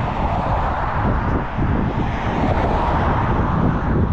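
Car driving past on the road alongside, a steady rush of tyre and engine noise, with wind buffeting the microphone.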